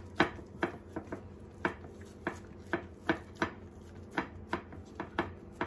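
Hands patting and pressing oiled, sticky focaccia dough into a ceramic baking dish: a string of short, sharp slaps, about two to three a second at an uneven pace.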